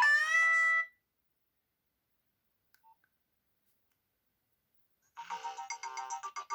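Nokia 6030 polyphonic ringtones. One ends about a second in on a rising glide to a held note, then there is about four seconds of silence, and another, busier tune with rapid notes starts near the end.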